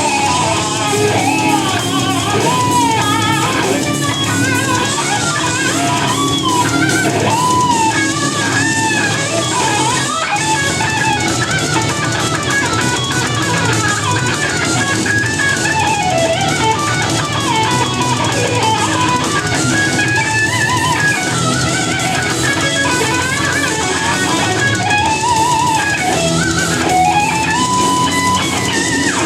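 Electric guitar playing a lead melody full of string bends and vibrato, with bass and drums underneath.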